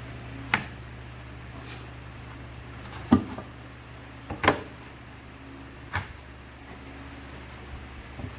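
Wooden drawer parts knocking as they are handled and set in place: about six separate sharp knocks, the loudest near the middle, over a steady low hum.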